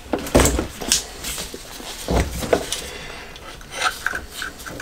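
Clinks and knocks of metal carburettor parts being handled as a float bowl is taken off a Honda CB750's bank of four carburettors, with a few light, high clinks near the end.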